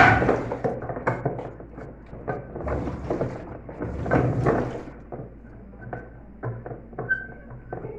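Metal clinks and knocks from a 10 mm wrench working loose the bolts inside a Consul Facilite washing machine, with a sharp knock right at the start and a busier clatter about four seconds in.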